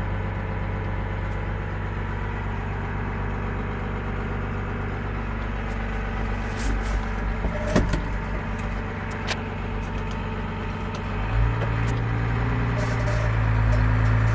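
New Holland TM140 tractor's six-cylinder diesel engine running steadily, heard from inside the cab. A few clicks and knocks come around the middle, and about eleven seconds in the engine note grows louder.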